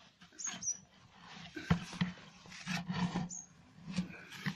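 A wooden stick churning a thick, wet mash of fish waste and jaggery in a plastic drum while fish amino acid is being mixed: irregular squelching and sloshing, with a sharp knock a little under two seconds in and another about four seconds in.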